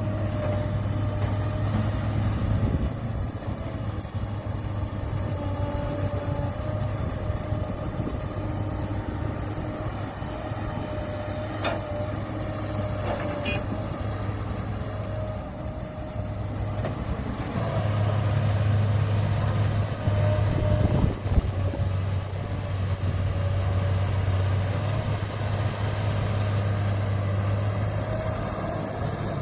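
Diesel engine of heavy earthmoving machinery running steadily, with a deep hum and a steady whine, and a few sharp metallic knocks. It grows louder about two-thirds of the way through, as the machine works harder.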